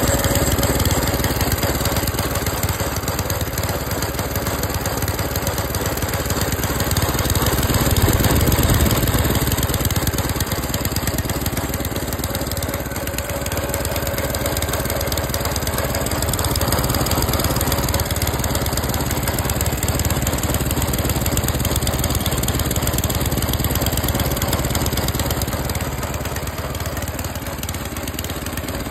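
Tecumseh small engine on a Qualcast Classic cylinder lawn mower running steadily at idle, a little louder about eight seconds in.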